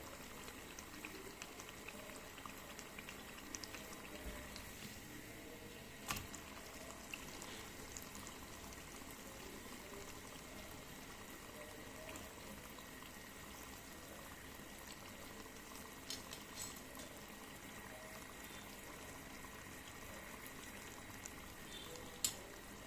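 Murukku deep-frying in hot oil: a faint, steady sizzle and crackle of oil bubbling around the dough. The oil is bubbling calmly rather than foaming up, which the cook takes as the sign that the murukku is cooked through. Two light clicks, one about six seconds in and one near the end.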